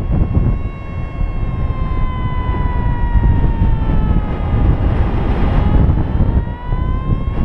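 Paragliding variometer's continuous sink tone, a buzzy note that slides slowly down in pitch for about five seconds and rises again near the end, the vario's signal that the glider is sinking. Heavy wind rush on the microphone runs under it.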